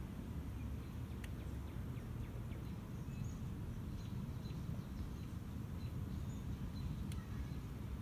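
Lakeside outdoor ambience: faint, scattered bird chirps over a steady low rumble, with a sharp tick about a second in and another near the end.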